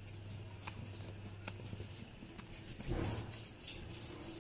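Quiet handling of soft dough being pulled apart and shaped into balls by hand, with a few light taps and a soft thump about three seconds in, over a steady low hum.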